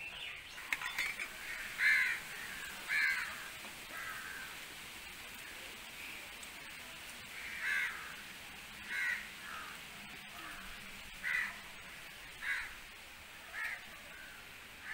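A bird calling: short repeated calls, two near the start, then after a pause a run of five more about a second apart.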